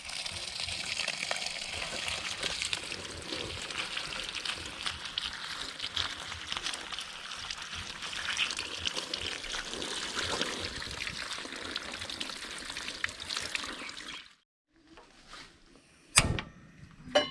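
Water running and trickling steadily, then cutting off suddenly about fourteen seconds in. A sharp knock and a few clinks follow near the end.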